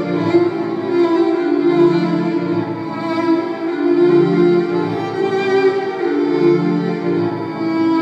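Amplified violin playing live over a low phrase that repeats about every two seconds.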